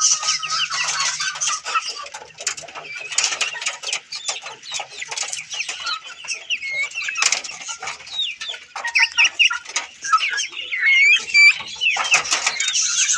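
A flock of Australorp chickens clucking and calling, many short calls overlapping without a break.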